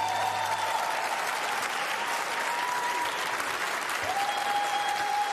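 Audience applauding steadily, a dense clapping. A thin, steady high tone is held over the clapping for the first few seconds and again from about four seconds in.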